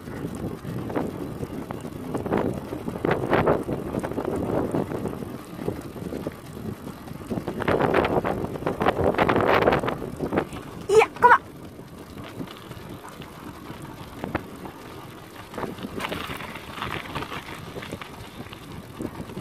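Bicycle rolling over a gravel road, pulled by two dogs, with tyre noise rising and falling. About halfway through comes a short pitched squeak, twice in quick succession.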